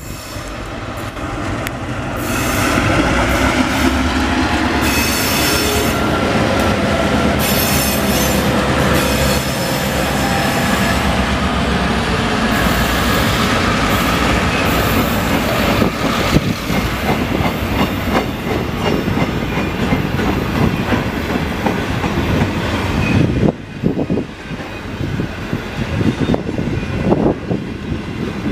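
Two Victorian Railways B class diesel-electric locomotives passing close with a freight train. Their EMD two-stroke diesel engines are loud through the first third. After that come the wagon wheels, clicking steadily over the rail joints, with some high wheel squeal on the curve.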